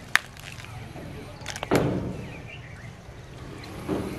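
Buffalo head being pulled apart by hand after knife cuts, its bones separating with sharp cracks: a click just after the start, a louder crack about a second and a half in, and a smaller one near the end.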